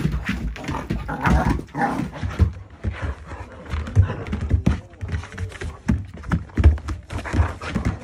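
Two Akita dogs play-wrestling: scuffling and panting, with irregular thumps of bodies and paws against the floor and each other.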